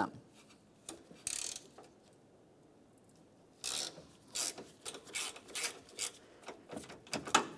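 Hand ratchet with a 5 mm hex socket loosening a grille mounting screw: short bursts of pawl clicking as the handle is swung back and forth. There is one burst a little after a second in, then a quick run of them, about two a second, from about halfway.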